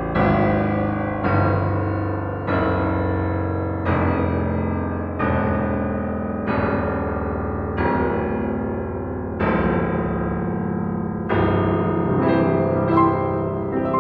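Bösendorfer Imperial concert grand piano playing left-hand octaves one after another, about one every second and a half, descending below the lowest A of a standard piano into its extended bass. Each deep note rings on into the next, rich in overtones; near the end a few notes come quicker.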